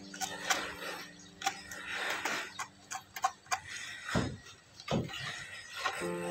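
Scattered light clicks and faint scratching from hands handling a small wooden block against a plywood board and marking it with a marker pen. Background music fades out at the start and comes back near the end.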